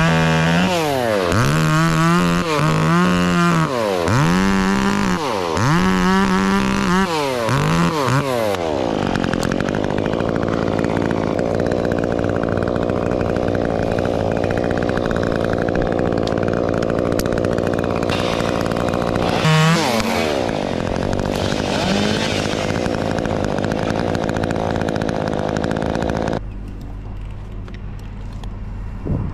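Top-handle chainsaw revved up and down several times, then running steadily for a long stretch with one brief rev. The sound drops away suddenly near the end.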